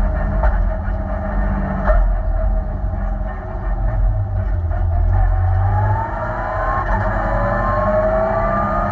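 Renault Clio 5 rally car's engine heard from inside the cabin at full stage pace, with road and tyre noise underneath. A few sharp clicks come in the first two seconds, and from about six seconds in the engine pitch climbs steadily as the car accelerates.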